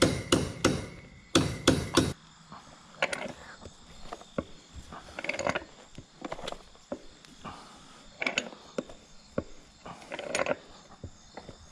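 Ratchet wrench clicking as it tightens the nut on a gate hinge bolt: sharp clicks, about four a second, for the first two seconds, then quieter scattered clicks and metal scrapes at the hinge.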